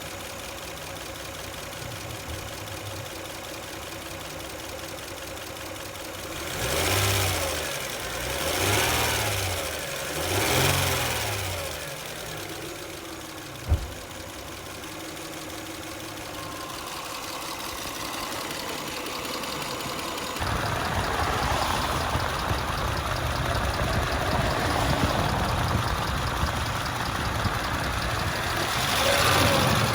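2003 Lexus ES300's 3.0-litre V6 idling with a rapid click-click lifter tick, which the owner takes for a stuck or collapsed lifter. It is revved briefly three times about seven to eleven seconds in, with a single sharp click a little after. From about twenty seconds on the engine sounds louder, rising again near the end.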